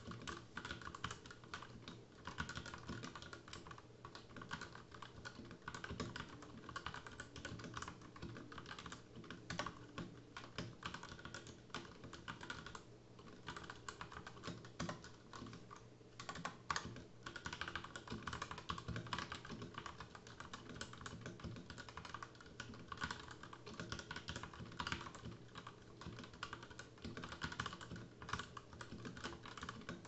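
Fast continuous typing on an Ozone Tactical Mini 65% mechanical keyboard with Outemu Red linear switches: a rapid, steady clatter of keystrokes at about 65 words a minute, with a brief lull about halfway through.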